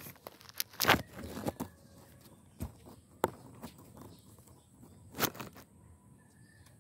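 Dry leaves and weeds rustling and crunching in short, irregular bursts, with a few sharp cracks.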